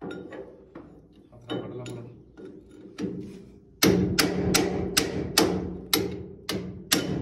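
Steel hammering on the straw reaper's shaft and bearing housing to knock a bearing loose: a few lighter knocks, then about a third of the way in a fast run of about nine ringing metal blows, two to three a second.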